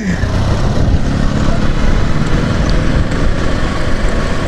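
Motorcycle engine running steadily at low revs while the bike is ridden along, with rushing air noise over the microphone.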